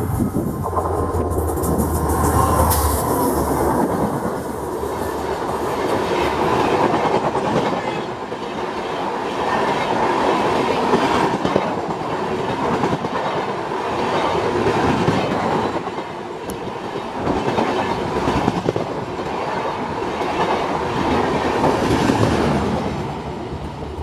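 A WDP4D diesel locomotive passes close at speed, with its engine's low drone strongest in the first few seconds. It is followed by a long rake of LHB passenger coaches rushing past, their wheels making a steady rolling rush with clickety-clack over the rail joints.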